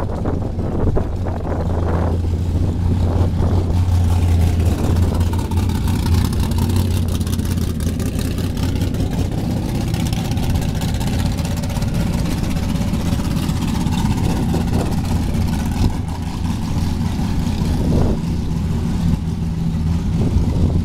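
A motor vehicle engine running steadily, with a low even drone throughout.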